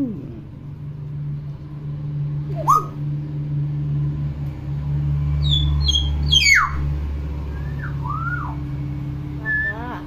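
Common hill myna giving a scattered series of whistles and calls: a sharp rising note a few seconds in, high whistles and a loud falling whistle past the middle, then a few arched notes near the end. A steady low hum runs underneath.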